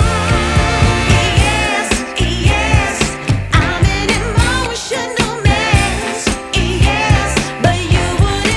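Background music: a song with a sung vocal over a steady beat.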